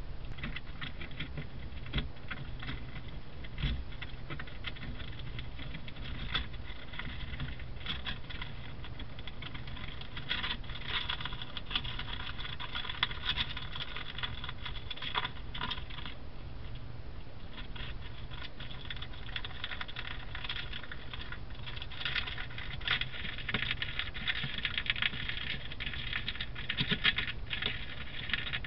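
A vole gnawing and tugging at a sheet of paper: dense, rapid crackling and clicking, busiest in spells in the middle and near the end.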